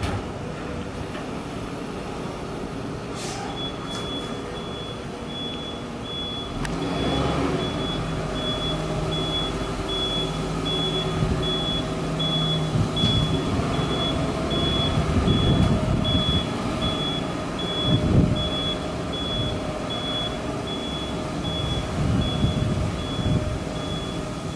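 Kato rough-terrain crane's diesel engine running as the crane drives off, rising in level about seven seconds in. From a few seconds in, its high warning beeper sounds at an even pace.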